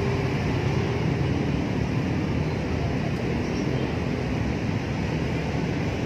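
Steady rumble of road traffic from an elevated highway, an even noise with no single vehicle standing out.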